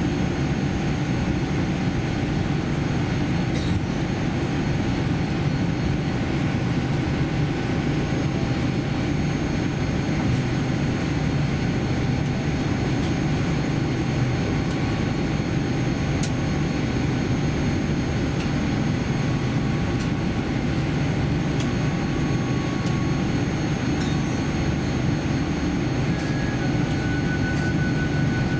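Cabin noise inside a Boeing 787-10 airliner while it taxis: a steady low rumble from the engines at taxi power, the airflow and the rolling, with faint steady tones above it.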